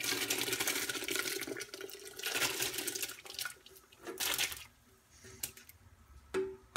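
Canned hominy and its liquid poured from the can into a pot of chile broth, splashing in three pours: a long one at the start, another about two and a half seconds in, and a short one about four seconds in.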